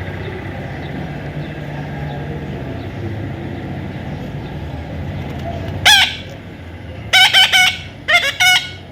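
A steady low rumble of background noise, then about six seconds in a parrot gives a loud harsh call, followed by a quick series of short, shrill screeches.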